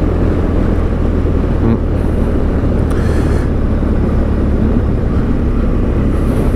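BMW R1200GS LC boxer-twin motorcycle engine running steadily at cruising speed, with wind and road noise.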